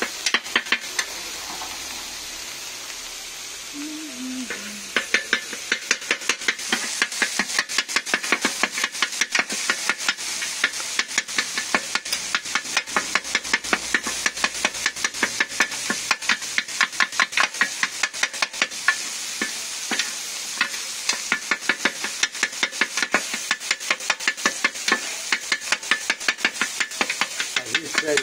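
Kefta and tomato pieces sizzling on a hot flat griddle. From about five seconds in, a knife chops through them onto the metal plate in rapid, even strokes, several a second.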